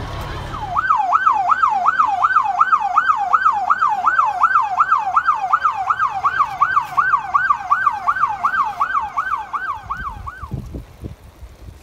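Electronic emergency-vehicle siren in fast yelp mode, its pitch sweeping up and down about three times a second; it starts about a second in and cuts off near the end. A low engine rumble is heard before the siren starts.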